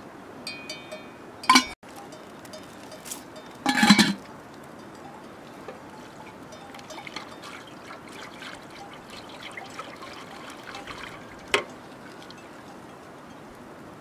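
Aluminium bowls clinking and knocking against each other, with two loud clanks in the first four seconds. Then a thin liquid is poured from one aluminium bowl into a metal pot, trickling for several seconds, and a single sharp metallic tap comes near the end.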